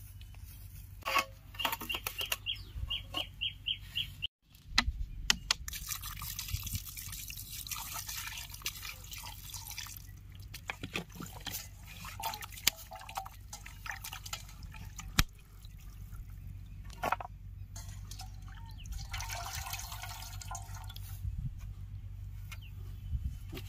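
Water running and splashing in bursts, with scattered sharp clicks and knocks. About two seconds in there is a quick run of about eight short high chirps.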